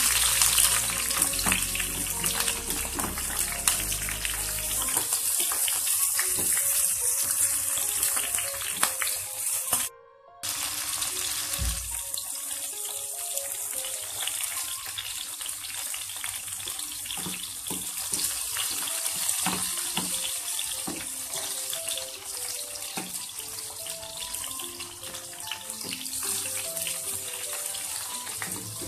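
Shallots, garlic and chillies frying in hot oil in a pan: a steady sizzle, hardest at the start as the freshly added chillies hit the oil, then easing off. Background music plays underneath, and the sound cuts out briefly about ten seconds in.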